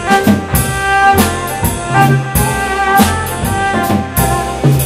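A small jazz band playing live: bowed violin over plucked upright double bass, keyboards and a drum kit, with held melody notes over a walking bass line and regular drum hits.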